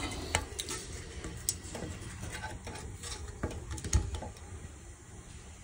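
A 3D-printed plastic part being handled and pushed into place against the car's front end: a few scattered light clicks and knocks, the loudest about four seconds in.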